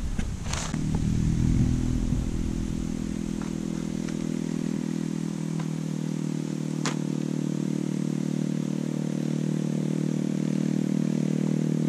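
A motor engine running steadily at a low idle, with a few short sharp clicks over the hum.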